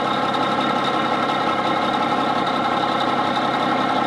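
Semi truck's diesel engine idling steadily, heard from under the truck.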